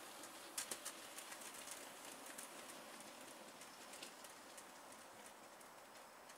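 Wheels of OO gauge model coal wagons and locomotive clicking over the rail joints as the train runs, faint, over a steady hiss. The loudest clicks bunch up about half a second to a second in, with lighter irregular clicks after.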